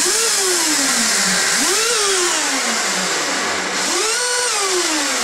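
Electric jet-boat motors and jet drives being throttled up on the bench, out of the water: a loud steady rushing whir with three spin-ups, each a quick rise in pitch followed by a slower fall as the motor coasts down; the third, about four seconds in, holds at the top briefly before falling.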